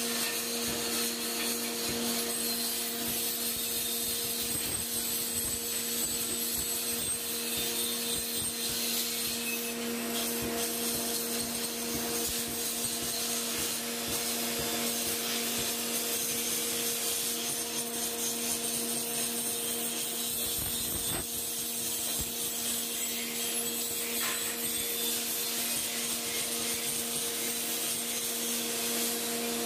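A grinding machine running steadily: a constant motor hum under the continuous rasping hiss of the wheel grinding.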